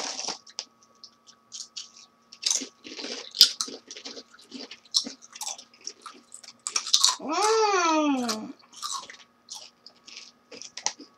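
Several people biting and chewing crisp Lay's potato chips, a scatter of irregular crunches. About seven seconds in, one voice rises and falls in pitch over a second or so.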